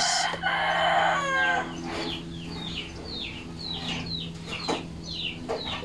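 A rooster crowing, then chickens clucking in a quick run of short, falling calls, about three a second.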